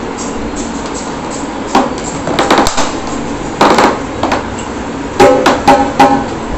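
A dhol being struck in uneven clusters of sharp strokes, each with a short ringing tone, as it is checked for tune during repair. The loudest strokes come near the end, over a steady background hiss.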